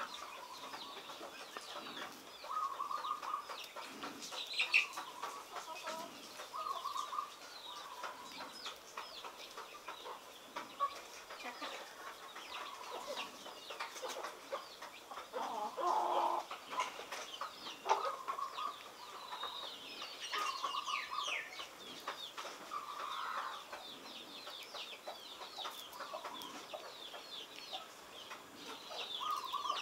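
Chickens clucking repeatedly, with short high chirps going on throughout.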